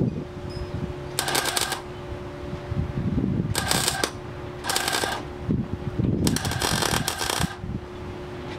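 Arc welder crackling in four short bursts, stitch-welding rust repairs in the sheet metal of a Rambler American's engine bay, with a steady hum underneath.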